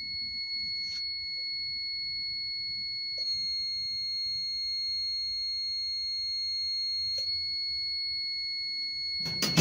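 Heat press timer buzzer sounding one steady, high-pitched electronic tone that signals the pressing time is up, with a few faint clicks; near the end it cuts off with a loud clunk.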